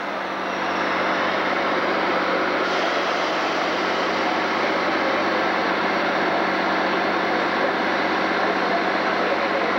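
Turbocharged International Harvester farm tractor's diesel engine running steadily at a fairly constant level.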